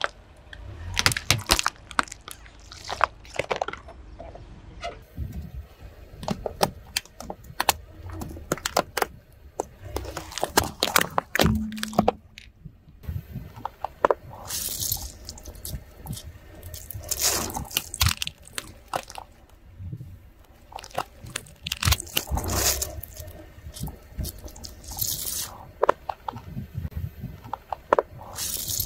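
Objects cracking, crunching and squishing as a car's tyre rolls over and crushes them, with liquid splashing out; several of the cracks are followed by a short hiss.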